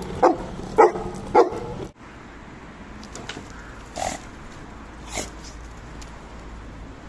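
A dog barking: three short, sharp barks about half a second apart, which stop abruptly about two seconds in. Later come two much fainter short sounds.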